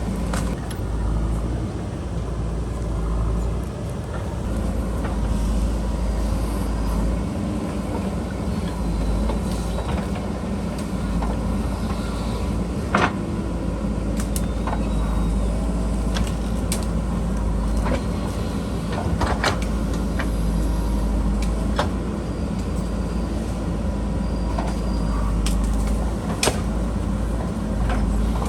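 JCB backhoe loader's diesel engine running steadily under load while digging, with scattered sharp knocks and clanks, the strongest about halfway through.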